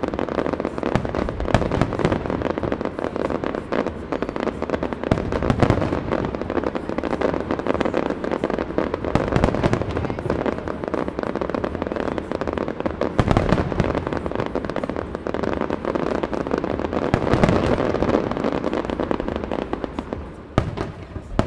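Aerial fireworks going off in a dense, rapid barrage: many bangs and crackles overlap without a break, and the barrage thins out near the end.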